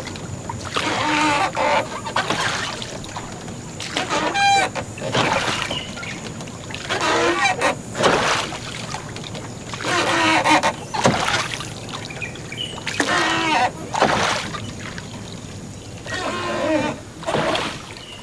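Hand-powered river ferry being worked across the water: creaking, honk-like squeals and splashes in a regular stroke rhythm, the bursts coming in pairs about a second apart every few seconds.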